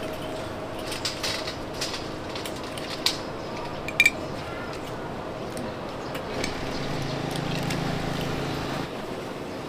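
Street-food stall ambience: a steady background din with scattered clicks and taps of metal utensils. The sharpest is a bright clink about four seconds in.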